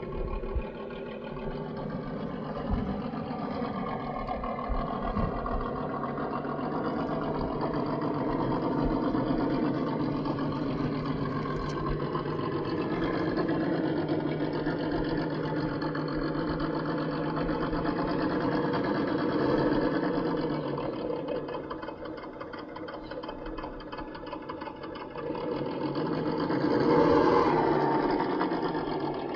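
1:10-scale RC crawler's electric motor and gear drive whining, the pitch rising and falling with the throttle as it crawls over rocks, with a louder surge near the end.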